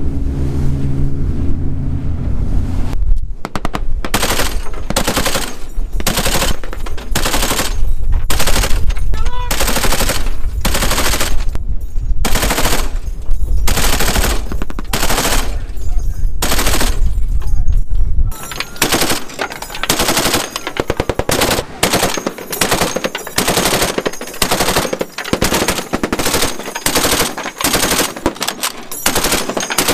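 A boat's engine drone for the first few seconds, then repeated short bursts of automatic fire from boat-mounted belt-fed machine guns, one burst after another.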